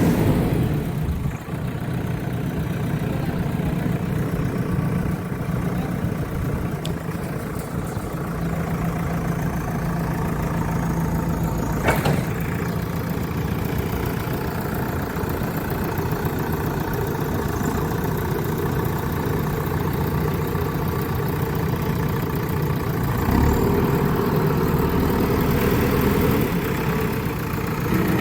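Backhoe loader's diesel engine running steadily. It grows louder for a few seconds near the end, and there is a single sharp knock about halfway through.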